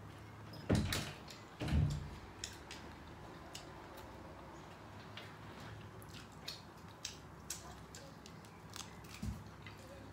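A person chewing and smacking their lips while eating shrimp and rice by hand, with scattered small clicks throughout. Two dull thumps come about a second in, and another comes near the end.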